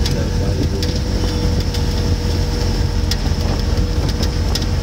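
Engine and road rumble of a moving vehicle heard from inside it: a steady low drone with a faint steady hum and scattered short clicks and rattles.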